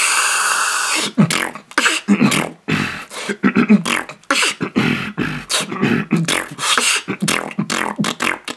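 Heavy-bass vocal beatboxing: a sustained hissing noise lasting about a second, then a fast, dense run of mouth-made percussion hits with deep bass tones.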